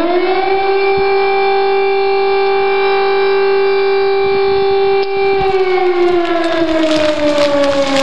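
Civil-defence warning siren: the tone finishes rising, holds steady at full pitch for about five seconds, then starts winding slowly down. Crackling noise comes in over it near the end.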